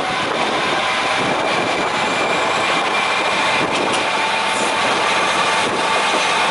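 Ex-JNR diesel railcar under way, heard at an open side window: its diesel engine running steadily with wheel and rail noise, a faint whine in it and a few light clicks from the track.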